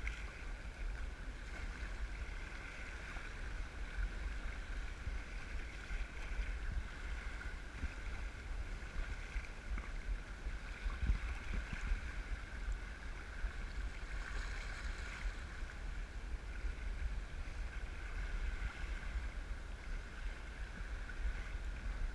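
Sea water splashing and lapping against a kayak's hull on choppy water, with wind rumbling on the microphone.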